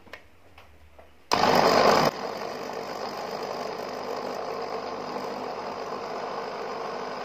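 Electric kitchen blender switched on about a second in, loud for a moment, then running steadily on an overfull load of fruit.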